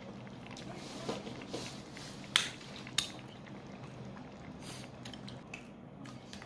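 Eating utensils clicking against a bowl while eating hot pot: two sharp clinks about half a second apart, with a few softer clicks around them.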